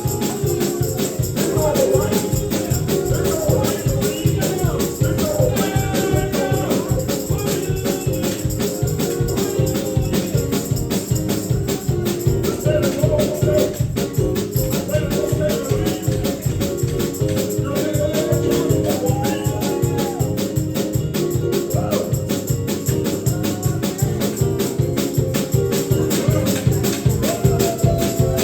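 Gospel praise-and-worship music: a fast, even tambourine or shaker rhythm runs under voices singing.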